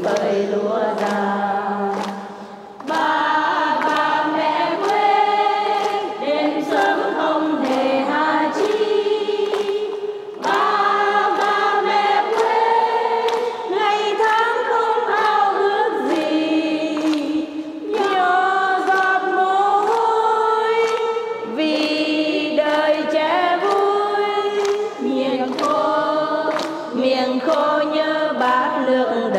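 A group of voices singing a slow Vietnamese song together in held, melodic phrases with brief breaths between lines. Faint sharp ticks keep a steady beat underneath.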